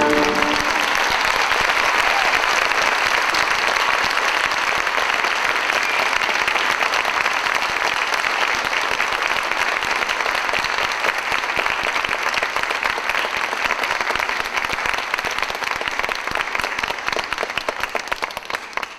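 Audience applauding, dense and steady clapping that slowly thins and dies away near the end. The last held notes of the orchestral music fade out right at the start.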